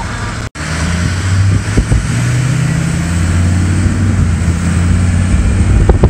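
Truck engine and road noise heard from inside the cab while driving: a steady low drone that grows louder after a momentary dropout about half a second in.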